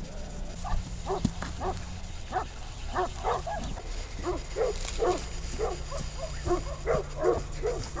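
A dog barking over and over, about two to three short barks a second, over a steady low hum.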